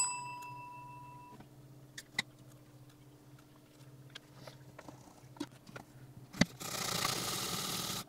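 Faint small ticks and taps of a soldering iron and desoldering braid working across a circuit board, with a ringing tone fading out in the first second. Near the end a sharp click is followed by a steady hiss of about a second and a half.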